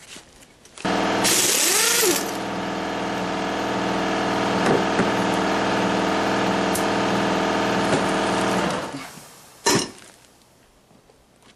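Pneumatic impact wrench run against a bolt for about eight seconds, with a strong air hiss at first, then winding down. One short second burst of the wrench follows about a second later.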